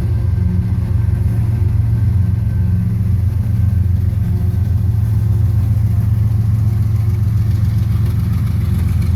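Diesel locomotive of a freight train running steadily, a loud, even low drone.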